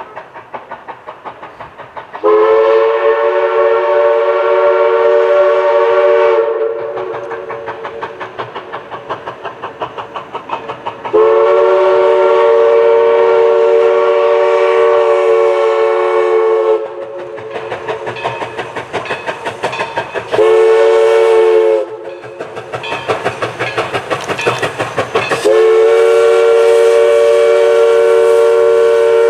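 Steam whistle of East Broad Top 2-8-2 steam locomotive No. 16 blowing long, long, short, long, the grade-crossing signal, the last blast held on. Between the blasts the locomotive's exhaust beats evenly as it works along the narrow gauge line.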